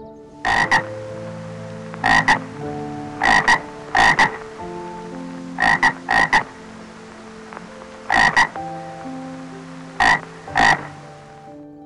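A frog croaking: a series of short, loud croaks, mostly in quick pairs, repeating every second or two.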